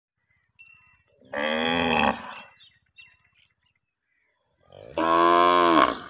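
A calf mooing twice: two calls about a second long each, the second ending in a downward slide in pitch.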